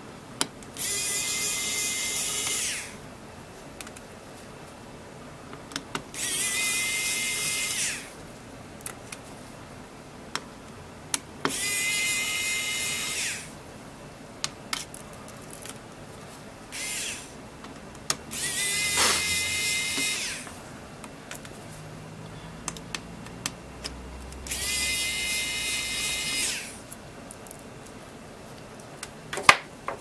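Small electric screwdriver whirring in runs of about two seconds, five times plus one short blip, backing out the screws that hold a Kindle Fire HD 10's logic board. Light clicks and taps come between the runs, and a sharp clack near the end.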